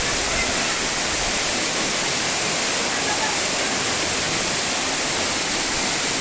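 Steady rush of water falling at a mountain waterfall, an even unbroken hiss.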